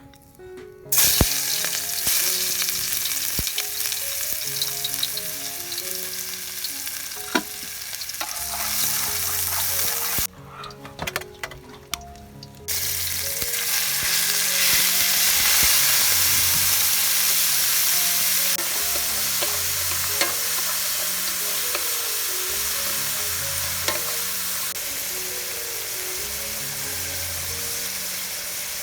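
Food sizzling loudly in a hot pan while being stir-fried, starting about a second in. The sizzle drops away for a couple of seconds near the middle, then comes back loud.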